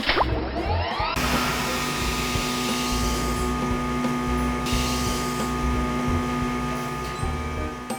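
Cartoon machine sound effect: a whir rising in pitch over about the first second, then settling into a steady mechanical whirring hum with hiss that eases off near the end.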